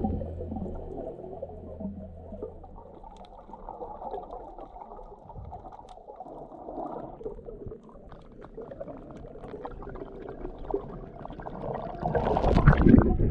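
Muffled underwater sound picked up by a submerged action camera: a low water rush with faint bubbling and small clicks. Near the end it swells into louder splashing and gurgling as the camera breaks the surface.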